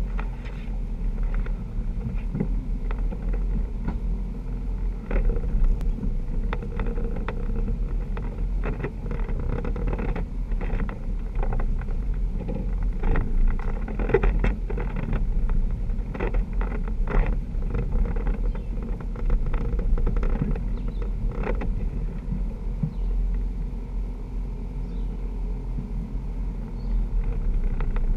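Jeep engine running steadily at crawling speed on a rough trail, a continuous low rumble, with frequent short knocks and rattles as the Jeep works over rocks and ruts.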